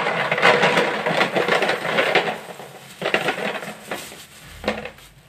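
Dry soya chunks poured from a plastic bag into a plastic jar: a rattling rush of chunks with the bag crinkling. One long pour, then two shorter bursts later on.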